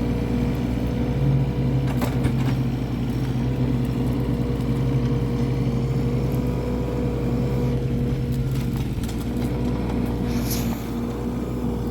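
An engine running at a steady speed, a constant-pitch hum whose deepest part drops away about nine seconds in.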